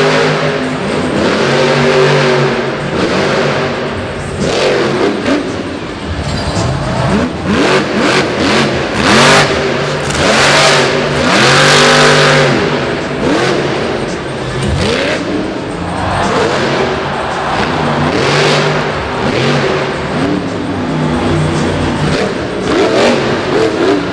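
Monster Mutt Dalmatian monster truck's supercharged V8 engine revving hard again and again, its pitch climbing and falling every second or two. A few sharp thumps come partway through.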